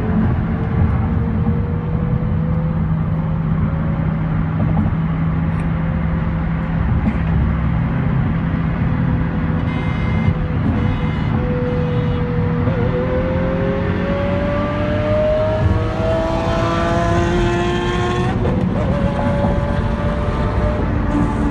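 Road and wind noise inside a car's cabin at highway speed. Past the middle, a vehicle's pitched note rises steadily for several seconds, then drops suddenly before going on at a lower pitch.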